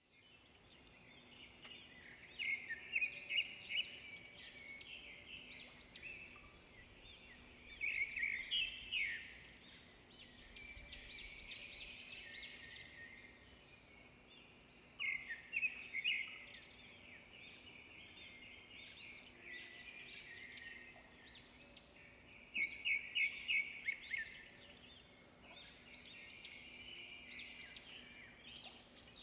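Small songbirds chirping, with quick runs of high chirps that swell into louder bursts every few seconds. A faint steady hum lies underneath.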